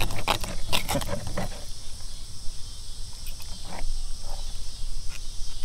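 Steady high-pitched insect chorus, with a few sharp clicks and knocks in the first second and a half and fainter ones later.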